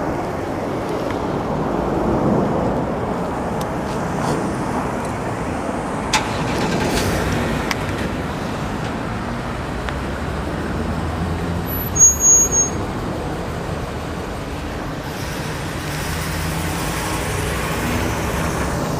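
Steady city traffic and road noise heard from a moving bicycle, with motor vehicles passing. About twelve seconds in, a brief high-pitched tone sounds over it.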